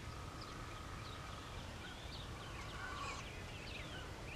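Wild birds calling in the woods: many short falling chirps, a steady held note for the first second and a half, and a longer, fuller call about three seconds in.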